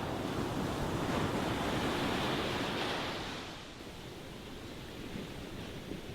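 Ocean waves breaking: a wave swells and washes in over the first three seconds, then falls back to a quieter steady wash of surf.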